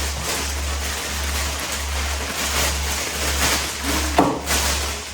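Background music with a steady low beat, under rustling and handling noises from unpacking, with one sharper knock about four seconds in.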